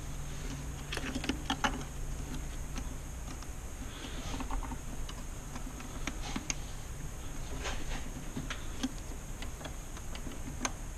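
Scattered small plastic clicks and handling noises as wiring-harness connectors are pushed onto a V8's fuel injectors, with a few sharper clicks now and then.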